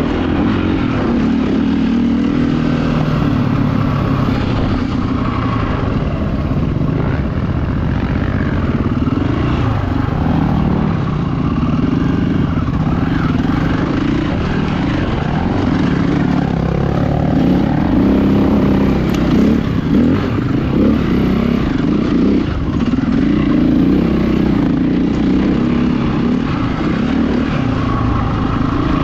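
Enduro motorcycle engine being ridden off-road, revving up and down constantly as the throttle is worked over rough ground.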